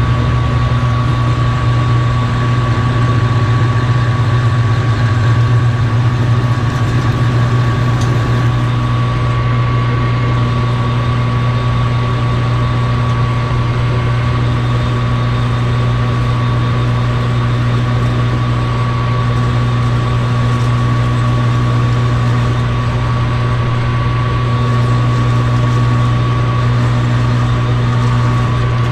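Metal lathe running steadily, a constant motor hum with a thin high whine over it.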